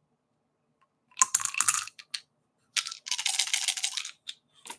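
Dice rattling and clattering for a play in a card-and-dice tabletop football game, in two bursts of clicks, the second longer, then a couple of single clicks near the end.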